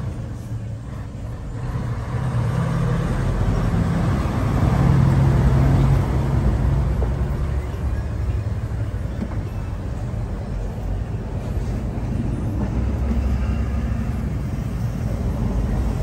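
Motor vehicle engine rumble by the road. It swells between about two and seven seconds in, then again near the end, as vehicles pass or rev.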